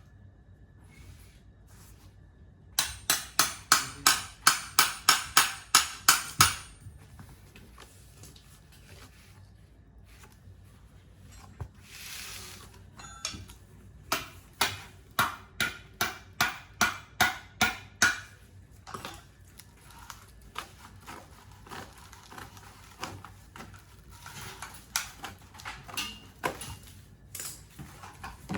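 Meat slicer machine running, making sharp metallic clacks in fast regular runs of about four a second. The runs stop and start a few times, with sparser single clacks between them.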